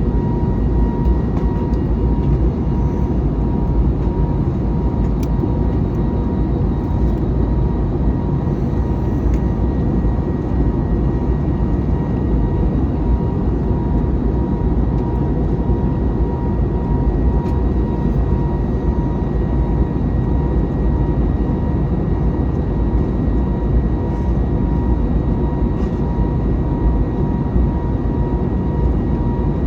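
Airbus A321neo's Pratt & Whitney PW1100G geared turbofan engines and airflow heard inside the passenger cabin: a steady deep rush with a constant high hum over it, holding even in level with no change in power.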